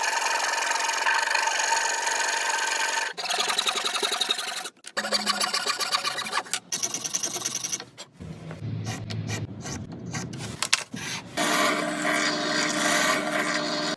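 Tools working wood, heard as a series of short clips of steady rasping, scraping noise with a faint tone running through it. The sound cuts off and changes abruptly about every two seconds.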